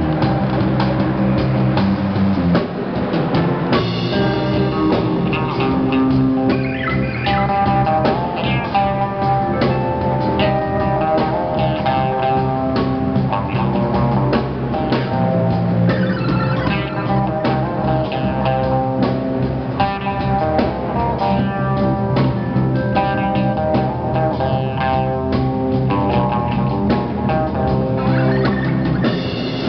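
Live rock band playing: amplified electric guitars, keyboard and a drum kit keeping a steady beat.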